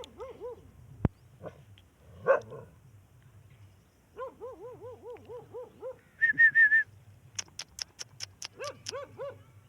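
A dog barking in quick runs of short yaps, about four a second, with a brief run of higher, louder yelps about six seconds in. A sharp click about a second in and a row of quick sharp ticks near the end.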